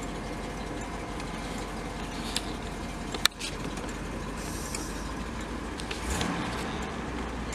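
1970 Cadillac De Ville's 472 V8 idling steadily, heard from inside the cabin while parked, with one sharp click about three seconds in.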